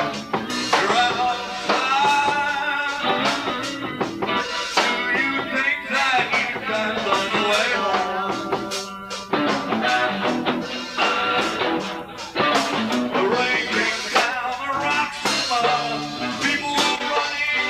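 Live band playing a bluesy rock song with electric guitar, bass guitar, drums and bongos.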